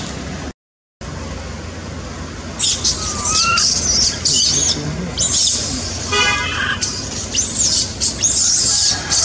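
Many high-pitched chirps and squeaks from animals in the tree canopy, some gliding up or down in pitch, with one short squeal about six seconds in. The sound cuts out for about half a second near the start.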